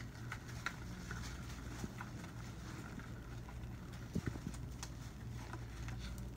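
Faint rustling and scattered soft clicks of sterile gloves being pulled onto the hands and their cuffs tugged into place, with a few low knocks about four seconds in, over a steady low room hum.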